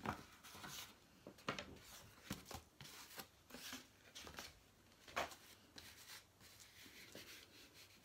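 A thin cardboard cereal box being handled and flexed: faint scattered rustles and soft knocks, the sharpest about five seconds in.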